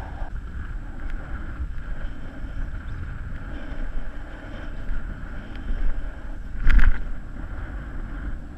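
Strong wind buffeting the body-mounted camera's microphone, a steady low rumble, with a short loud thump about seven seconds in.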